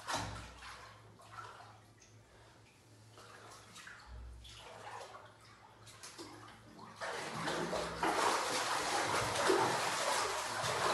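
Water in a full bathtub, sloshing faintly as a man gets in. About seven seconds in it turns to loud, continuous splashing and churning as he thrashes and kicks about, swimming in the bath.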